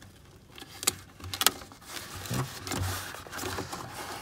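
Hands pressing duct tape and rope onto the inside wall of a plastic bucket: two sharp clicks about a second and a second and a half in, then rubbing and rustling against the plastic.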